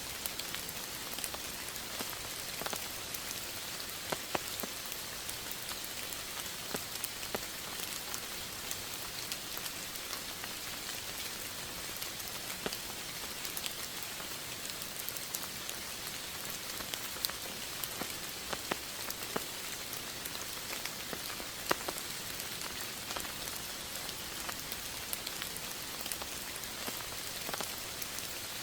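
Steady rain falling, with a continuous hiss and scattered sharp ticks of individual drops hitting a surface.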